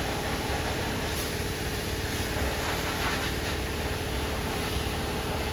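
High-pressure washer spraying water against the underside of a car raised on a lift: a steady hiss of spray with a constant hum beneath it.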